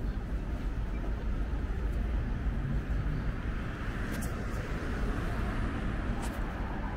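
Night city street ambience: a steady low rumble of distant traffic, with a couple of faint brief ticks about four and six seconds in.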